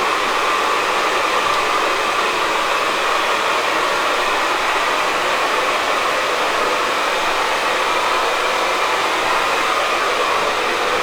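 Hair dryer blowing steadily at a constant speed, a loud, even rush of air.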